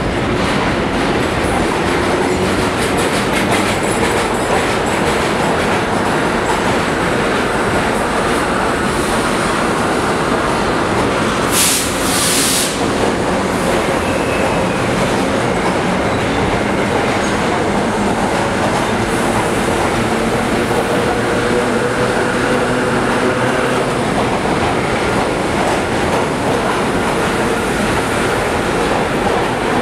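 Vintage New York City subway cars (R1–R9 'Arnines') running past through a station: steady rumble and clatter of wheels over the rail joints with faint drawn-out wheel squeal. A brief double burst of hissing air comes about twelve seconds in.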